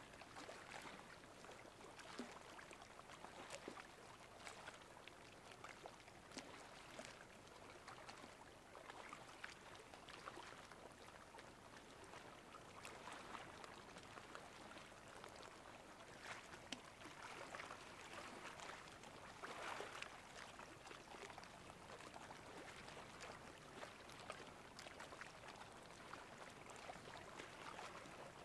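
Faint sea water lapping and trickling at high tide: a soft hiss with many small splashes and crackles and no steady rhythm.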